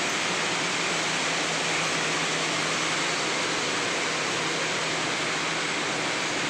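Paper slitting and rewinding machine running at speed, slitting a white paper web into narrow strips and winding them onto rolls: a steady rushing hiss with a faint low hum underneath.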